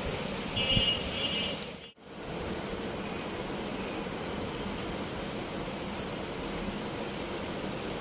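Steady hiss of falling rain. About half a second in, a cockatiel gives a short two-part chirp. The sound cuts out briefly near two seconds, then the rain resumes.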